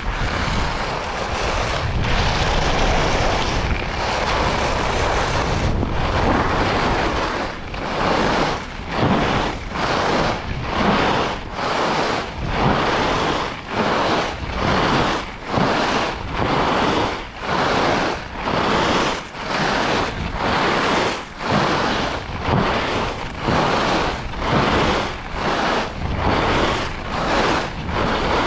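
Rossignol Hero slalom skis on packed-powder corduroy with wind rushing over the microphone: a steady rush of snow and wind at first, then, from about eight seconds in, rhythmic swishes of the edges biting on each short turn, roughly three every two seconds.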